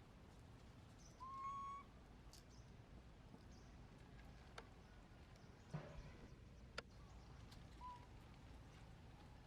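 Quiet background with short whistled animal calls: one held about half a second a little after the start, a briefer one near the end, and a few faint clicks between them.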